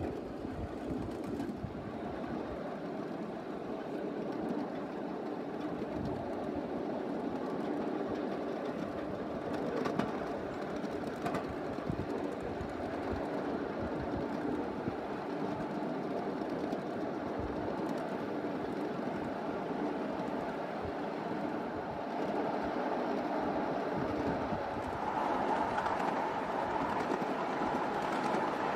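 A 1/8-scale miniature railroad train rolling along its track, a steady rumble with scattered clicks from the wheels, getting louder near the end.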